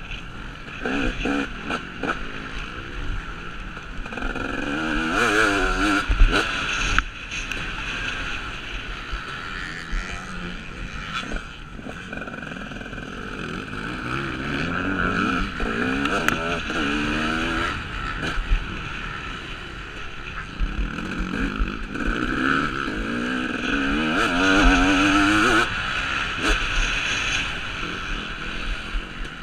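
KTM 250 SX two-stroke motocross bike engine being ridden hard. It revs up with a rising pitch and drops off again several times as the rider opens and closes the throttle.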